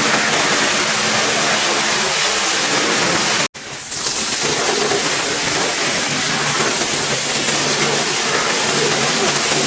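Pressure washer spraying water: a loud, steady hiss that drops out abruptly about three and a half seconds in, then resumes.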